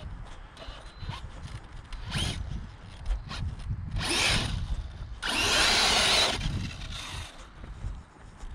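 Arrma Mojave RC truck's brushless electric motor whining in short bursts of throttle, three times, the last and loudest about a second long, over a low irregular rumble.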